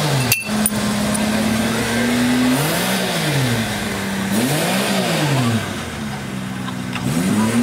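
A car engine idling steadily, then revved up and let fall back twice, the pitch rising and dropping smoothly each time, with another rev starting near the end. A sharp click comes just after the start.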